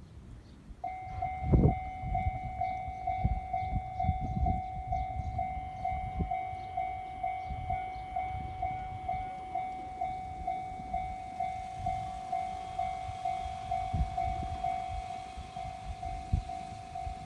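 A railway level crossing warning bell starts about a second in and keeps ringing, a steady two-note tone struck in an even, repeating beat. Under it is a low rumble with a few thumps, the loudest just after it starts.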